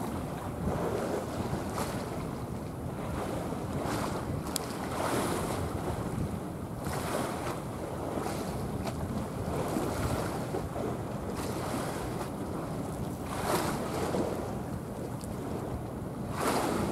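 Wind buffeting the microphone over the wash of a choppy sea, with louder gusts now and then.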